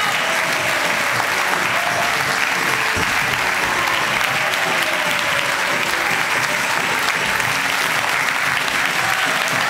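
A large theatre audience applauding, a dense, steady clapping from a full house.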